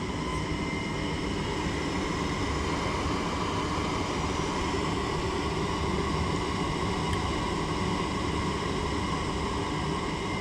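Gas furnace running: a steady mechanical drone from its motors, with several steady whining tones over it.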